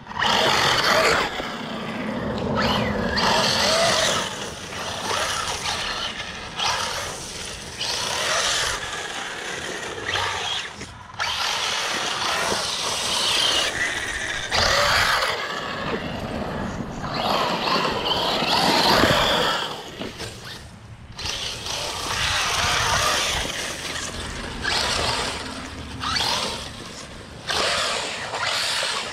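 Radio-controlled truck running hard in uneven bursts of throttle: electric motor whine and drivetrain noise, easing off briefly several times.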